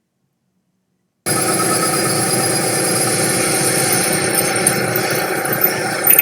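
Milling machine running with an end mill at work on aluminum channel: a loud, steady machine sound with several steady tones, cutting in suddenly about a second in after silence.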